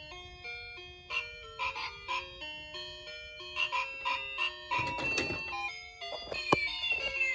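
A chiming electronic melody plays, a simple tune of bell-like notes of the ice-cream-van kind. About five seconds in comes a short noisy rustle, and a sharp click follows about a second later.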